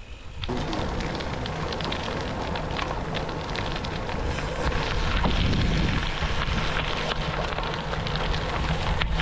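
Gravel-bike tyres rolling over a gravel road, a steady dense crackle of small stones, with wind rushing over the microphone of the moving camera.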